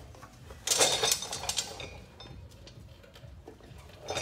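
Polished steel aftermarket exhaust clanking and scraping against its mounts as it is lifted and lined up by hand, loudest about a second in, followed by lighter metallic clicks and another clank near the end.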